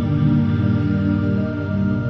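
Ambient new-age background music of slow, sustained, layered tones.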